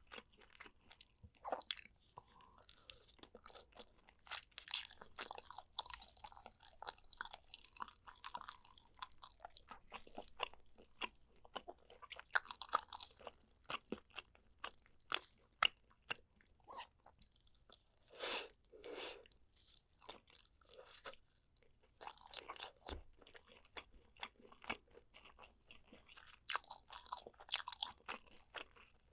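Close-miked eating of spicy soy-braised pork back ribs: chewing and biting with many short, sharp mouth and teeth clicks, and two longer, fuller sounds a little past the middle.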